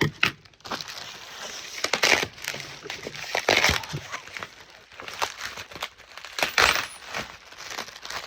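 Packaging of a boxed figure being handled and opened: irregular rustling, crinkling and light knocks, with sharper rattles about two seconds in, three and a half seconds in and near the end.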